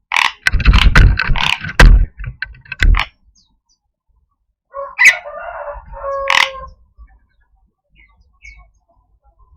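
Javan myna giving harsh, rasping 'cukrek cuekrok' calls: a rough run of notes lasting about three seconds, then after a pause a second call with a couple of whistled notes mixed in, and a brief chirp near the end.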